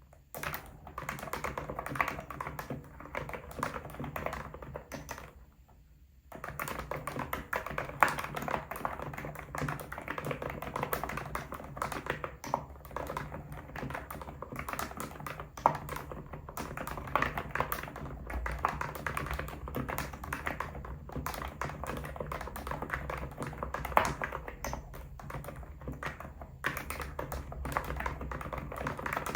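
Steady, fast typing on an ABKO electro-capacitive (non-contact) computer keyboard, a dense run of soft key strokes that pauses briefly about five seconds in before resuming.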